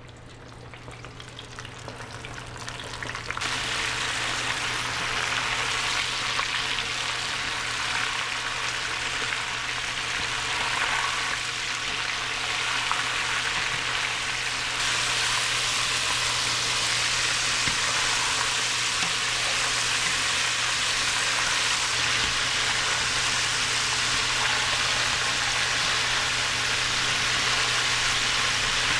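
Flour- and cornstarch-dredged chicken wings deep-frying in sunflower oil at 350 degrees: a dense, steady sizzle that builds over the first few seconds, steps up louder about three seconds in, and steps up again about halfway through.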